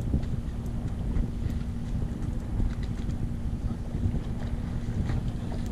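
Wind buffeting the microphone over the steady hum of a fishing boat's engine, with a few faint clicks.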